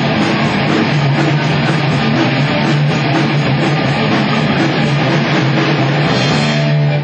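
Live rock band playing loud on electric guitars and drum kit.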